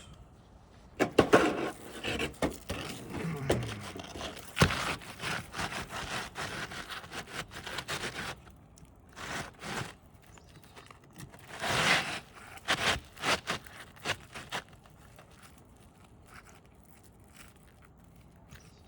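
Irregular scraping and knocking of hand work on an asphalt shingle roof, dying away about fourteen seconds in.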